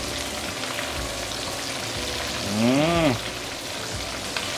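Pork ribs deep frying in medium-heat oil in a wok: a steady sizzle as a metal spoon turns them over. About two and a half seconds in, a short vocal sound from the cook rises and falls in pitch over it.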